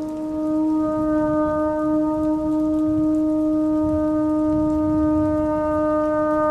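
Shofar (ram's horn) sounding one long, steady blast on a single pitch, over a low rumble.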